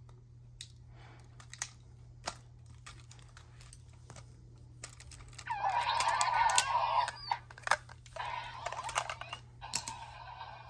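Sharp plastic clicks from a Yo-kai Arc being handled and slotted into a toy Yo-kai Watch. About five and a half seconds in, the watch's small speaker plays a loud electronic sound for a second and a half, and its sound starts again near the end.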